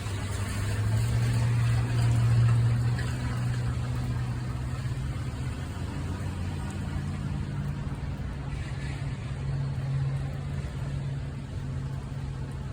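A deep, steady rumble with a faint even hiss above it. It swells about two seconds in, then settles back to a steady level.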